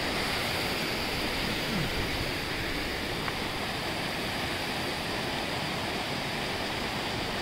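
Small mountain stream rushing and splashing over boulders in short cascades: a steady, unbroken rush of water.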